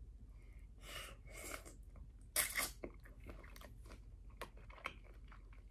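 A person chewing a cooked cocktail shrimp up close: faint, irregular wet mouth clicks and smacks, with a louder stretch about two and a half seconds in.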